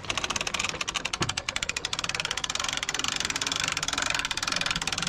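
Hand-cranked geared winch on a boat trailer being wound in on its webbing strap to pull the boat up onto the trailer, its ratchet clicking rapidly and evenly.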